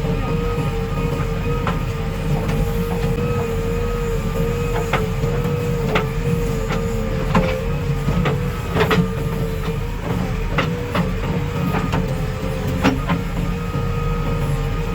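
Heavy diesel earthmoving machinery running steadily, with a low rumble and a whine that wavers slightly in pitch. Scattered sharp metallic clanks come through the middle of the stretch.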